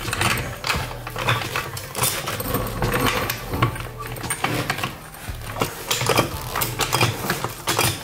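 Floor jack being set under the car's jacking point and pumped to start the lift, with irregular metal clicks and clanks.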